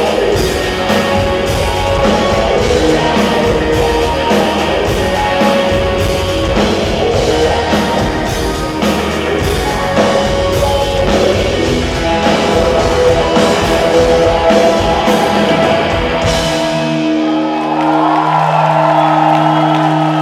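Live band playing loud rock with drums, electric guitar and singing. About sixteen seconds in, the drums stop and a held chord rings on.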